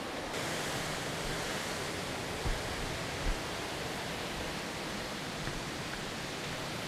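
Steady, even rushing hiss of outdoor ambience that turns brighter a moment in, with two soft low thumps about two and a half and three and a quarter seconds in.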